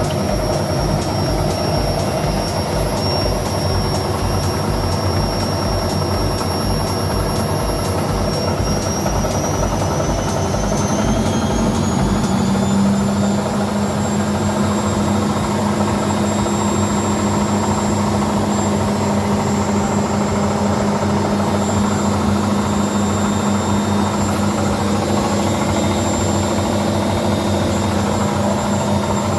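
Washing machine, its drum bearings newly replaced, running up into its full-speed spin: a low rapid pulsing at first, then a whine rising in pitch about eight to twelve seconds in, settling into a steady hum at full speed.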